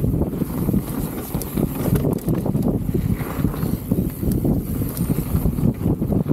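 Specialized Status 160 mountain bike riding down a dirt bike-park trail: a busy low rumble of tyres over rough ground, with rapid knocks and rattles from the bike over bumps.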